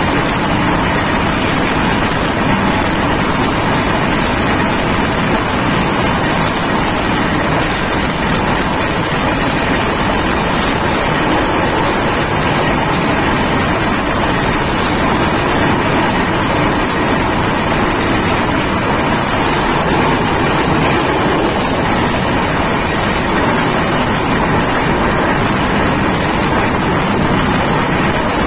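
Indian Railways passenger train running at speed, heard from inside a coach at an open barred window: a steady, loud rushing rumble of wheels on the rails and air past the coach.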